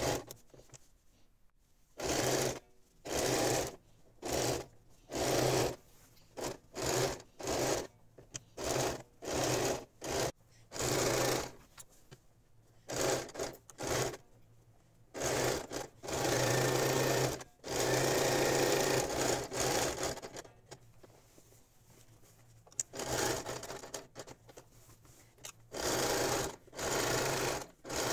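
Domestic electric sewing machine stitching through a layered quilted patchwork mat in short stop-start runs, with one longer run of about four seconds a little past halfway.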